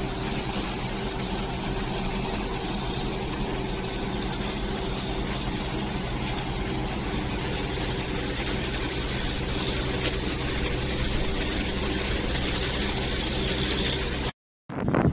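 Heavy rain falling, a steady hiss, with a steady low mechanical hum underneath. It cuts off suddenly near the end.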